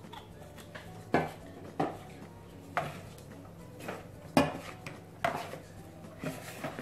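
Metal spoons stirring and scraping through a crumbly corn flour and conditioner mix in plastic mixing bowls, knocking against the bowls in a series of sharp clacks roughly once a second.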